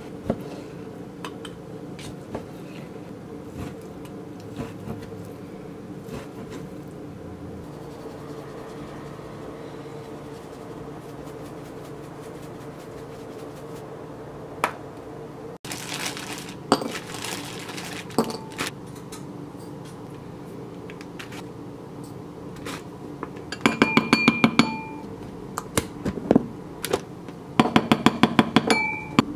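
A kitchen knife slicing raw beef on a plastic cutting board, with a few light knocks of the blade on the board. Near the end, two runs of quick clinking as a spoon works against a bowl while sauce is mixed.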